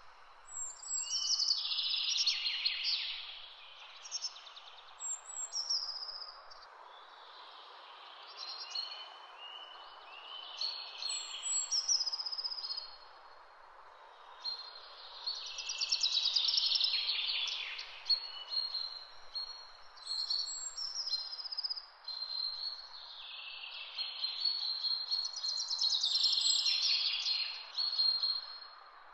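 Songbirds chirping and singing in repeated high, warbling phrases over a steady soft hiss.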